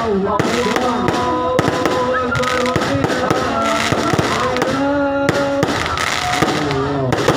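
Fireworks cracking and popping in quick succession over loud melodic music played through a sound system.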